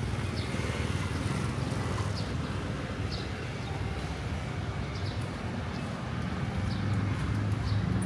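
Steady low rumble of city street traffic, with faint short high ticks about once a second.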